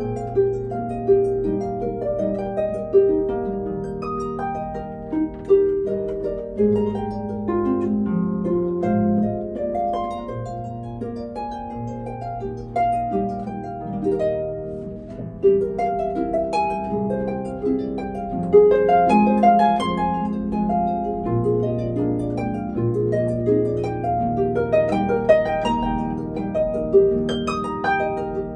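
Solo concert harp playing a flowing piece: a stream of plucked notes in the middle and upper range over ringing bass notes.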